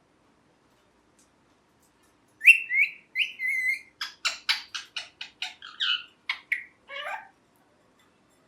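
Pet ring-necked parakeet calling: after a couple of seconds of quiet, two sharp chirps and a longer call, then a quick run of about ten short chirps, ending with a call that falls in pitch.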